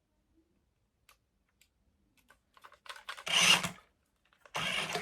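Small electric drive motor of a toy RC monster truck whirring in two short bursts a little over a second apart, after a few faint clicks.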